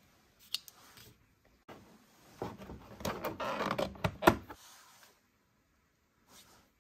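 Hard plastic clicking and rattling as hands work a round plastic collector's case and pull a small capsule figure out of its slot, with a sharp snap a little after four seconds in.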